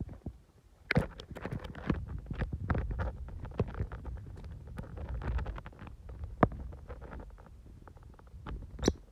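Peach-faced lovebird scrabbling and pecking in a half coconut shell: an irregular run of scratches, taps and clicks from claws and beak on the hard shell. A brief high chirp comes near the end.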